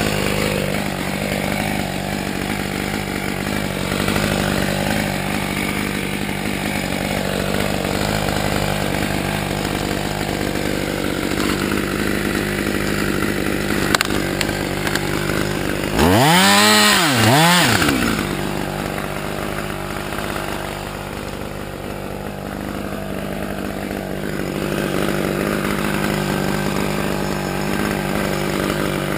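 Husqvarna T540xp top-handle two-stroke chainsaw idling steadily. About sixteen seconds in it is revved up and back down twice in quick succession, then settles back to idle.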